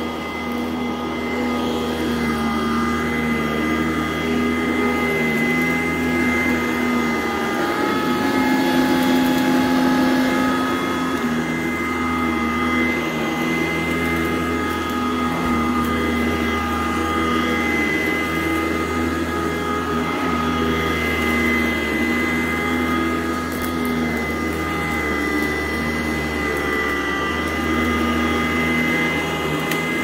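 Sanitaire SC899 commercial upright vacuum cleaner running steadily as it is pushed over carpet: a constant motor whine over a rushing hum, which rises slightly in pitch and level about eight seconds in.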